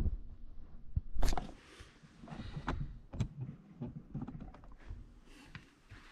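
Handling noise from a camera being set up by hand: a loud knock about a second in, followed by scattered small clicks and rustles.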